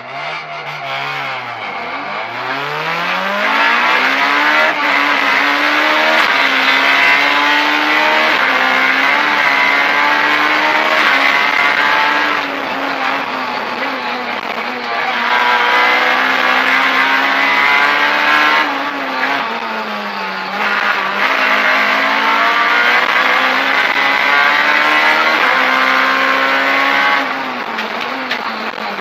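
Rally car engine heard from inside the cabin, pulling away from a standstill and accelerating hard up through the gears. The pitch climbs with the revs and drops at each gear change, then stays at high revs along the stage, with a few brief lifts.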